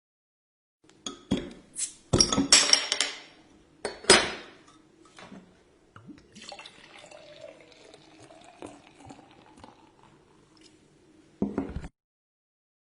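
Beer bottle and glass clinking and clattering as they are handled, loudest in a burst about two to four seconds in. After that come a few seconds of quieter fizzing and pouring, and one more short clink near the end.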